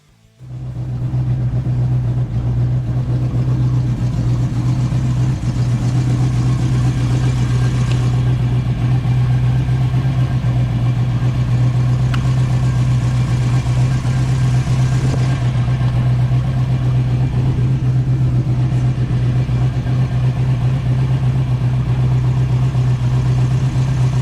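Ford Mustang SN95's 302 V8 idling steadily; the sound cuts in sharply about half a second in.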